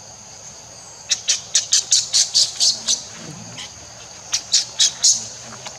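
Two quick runs of sharp, harsh squawking animal calls, about five a second: nine in the first run, then four more a little later. A steady high insect drone runs underneath.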